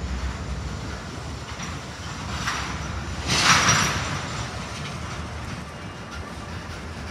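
Freight train's covered hopper cars rolling slowly past, a steady low rumble of wheels on rail. About halfway through comes a brief, louder, high hiss-like noise from the running gear.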